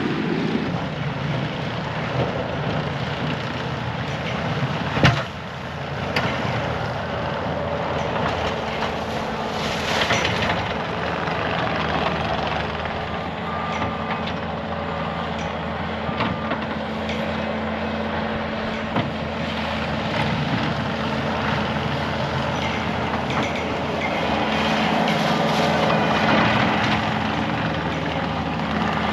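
Loader engine running steadily while it clears snow, with a single sharp knock about five seconds in and a few short high beeps around the middle.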